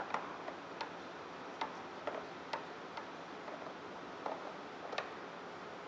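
Scattered light clicks and taps of hand tools being handled on a snowmobile engine, about eight of them at uneven spacing, over a steady low hiss.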